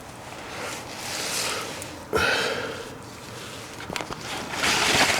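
A man breathing and sniffing close to the microphone: three noisy breaths, with a sharp sniff a little after two seconds in, and a few light clicks near the end.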